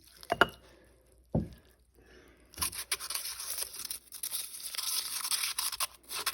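Two knocks in the first second and a half, then from about two and a half seconds in a continuous, irregular crunching scrape of a spoon stirring packed snow in a cup.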